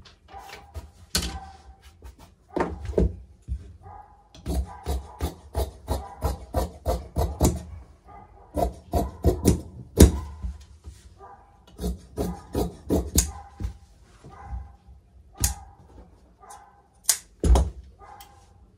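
Large steel tailor's shears cutting through cotton blouse fabric on a table: a long series of crisp snips in quick runs of several a second, with short pauses between runs.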